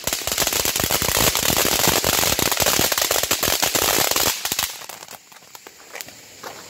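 Ground fountain firework spraying sparks with a dense, rapid crackle of pops over a hiss. It dies down about four and a half seconds in, leaving scattered fainter pops.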